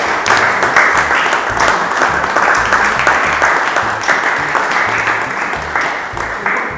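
Audience applauding, a dense run of hand claps, over background music with a low bass line. The clapping eases off near the end.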